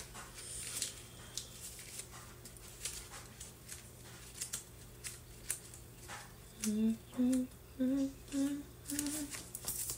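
A woman softly humming five short notes that step gently upward, starting about two-thirds of the way in. Faint paper rustles and small clicks come from a folded card being handled.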